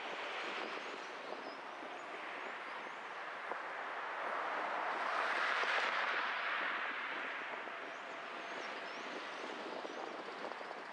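Road and traffic noise from a car driving: a steady rush that swells to a peak about halfway through and fades again. Faint high bird chirps come in now and then.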